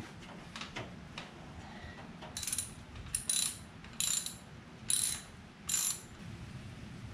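Socket ratchet with a 7/16 socket clicking in five short runs, about one a second, as it backs out the oil drain plug of a 125cc four-stroke pit bike engine.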